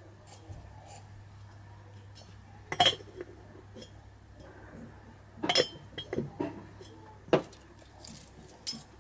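Light metallic clinks and taps as a piston ring and a feeler gauge are handled in a motorcycle cylinder bore while the ring end gaps are checked. There are about half a dozen separate clinks, the loudest about three seconds in and again about five and a half seconds in.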